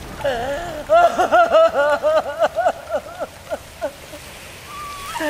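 A voice in a quick run of short rising-and-falling notes, about four a second, starting about a second in and trailing off a little before the end.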